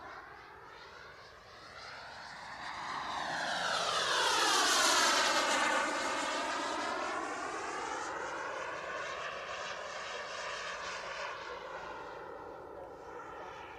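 A KingTech K70 G4+ model jet turbine in an RC T-45 jet flying past with a whine and rush of air. It grows louder to a peak about four to five seconds in, the pitch drops as it passes, and then it fades with a smaller swell and dip near the end.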